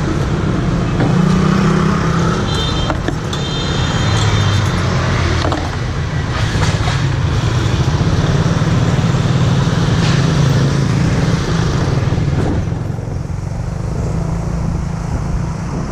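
Small motorbike engine running steadily at low speed on a street, with the hum of passing traffic. A brief high-pitched tone sounds about three seconds in.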